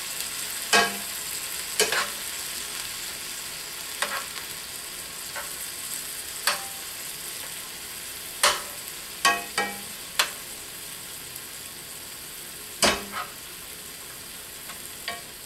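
Sausage and apple pieces simmering in chicken broth in a cast iron skillet with a steady sizzle, while a utensil stirs and chops the apples, knocking sharply against the pan every second or so.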